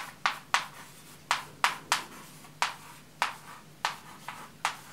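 Chalk writing on a chalkboard, letter by letter: about a dozen short, sharp chalk strokes and taps at uneven intervals.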